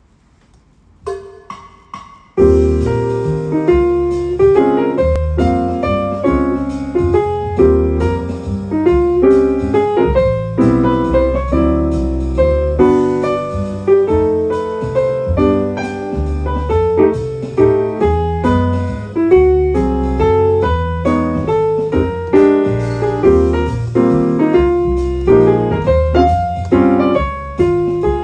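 Upright piano played with both hands: a couple of soft single notes about a second in, then a continuous passage with low bass notes under the melody from about two seconds in.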